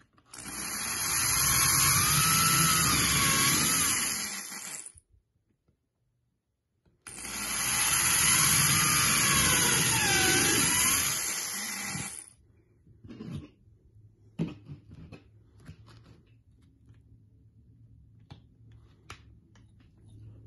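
Electric drill running twice, about five seconds each, boring holes through cardboard book covers and pages into a wooden board beneath; the motor's whine rises and falls during each run. After that, a few light clicks and taps.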